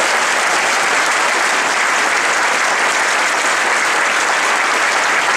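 A large audience applauding steadily, with the cast on stage clapping along.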